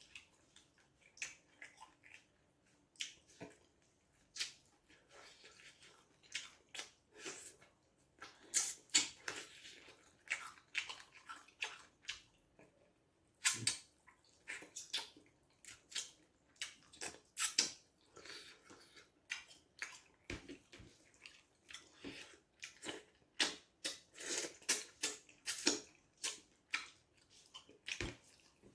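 Irregular clicks, knocks and clatter of kitchen work, with some splashing water.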